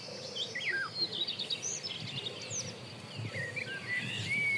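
Several small birds chirping and calling in quick short notes, over a low outdoor rumble of breeze.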